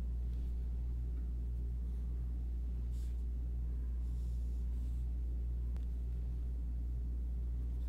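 A steady low hum throughout, with a few faint, soft ticks and rustles from fishing line being handled while half hitches are tied.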